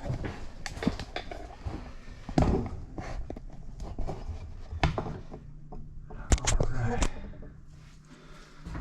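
Scattered clicks, knocks and rustles of hand work on an electrical wall box and switch, with a few sharper knocks about two and a half, five and six and a half seconds in.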